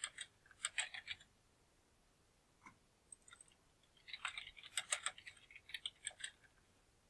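Computer keyboard typing in two quick bursts of keystrokes, a short one at the start and a longer one from about four seconds in, with a single click in between.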